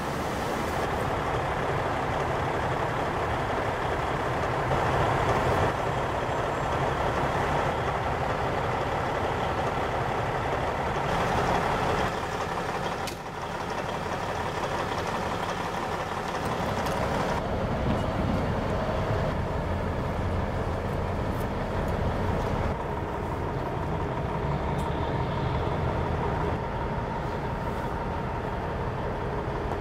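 Heavy diesel truck engine running steadily with a low rumble. The sound shifts abruptly several times.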